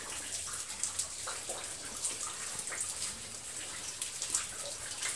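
Water dripping in a limestone cave: scattered drops falling at irregular moments over a steady faint hiss.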